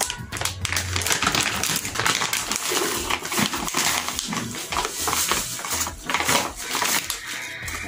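Scissors snipping open a plastic bag of pancake flour, then the bag crinkling and rustling as the flour is poured into a plastic tub.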